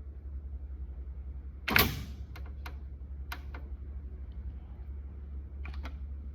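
Electric typewriter humming steadily, with one loud clack about two seconds in followed by a few lighter key clicks, and two more clicks near the end.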